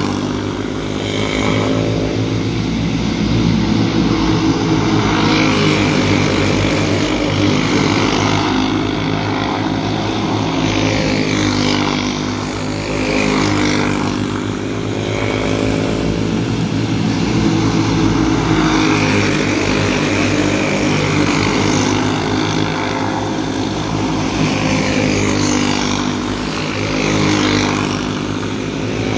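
Racing engines of the race field running hard. The pitch bends up and down and the loudness dips briefly about every six to seven seconds as they circle the track.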